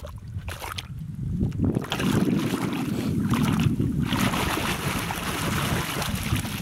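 Water splashing and sloshing as a plastic toy double-decker bus is swished back and forth through shallow muddy water to rinse off the mud. The splashing grows louder and busier about two seconds in.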